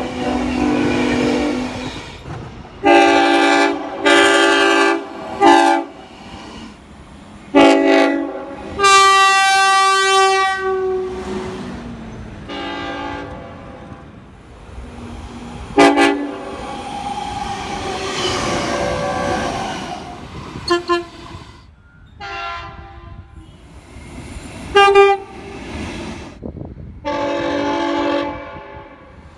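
Train air horns sounding a series of separate blasts, some short toots and some held for a couple of seconds, each a chord of several tones. Between the blasts comes the rumbling noise of a passing train.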